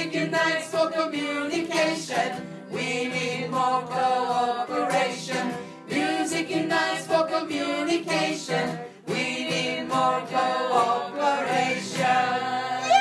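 A group of voices singing a calypso song, with steady instrumental backing underneath.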